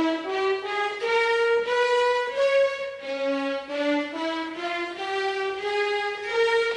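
Background score: violin playing a slow melody in two parts, the notes stepping up and down.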